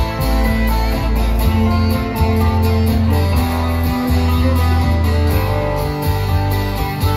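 Live acoustic band playing: several strummed acoustic guitars over an upright double bass whose low notes change about once a second.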